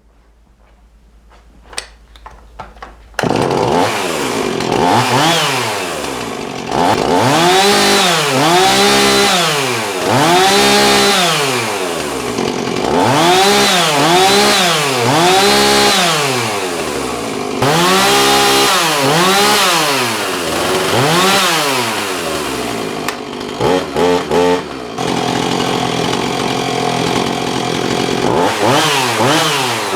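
Husqvarna 445 two-stroke chainsaw engine running, cutting in suddenly about three seconds in, then revved up and down over and over, about once a second. Near the end come a few quick blips of the throttle and a short steadier stretch before more revving.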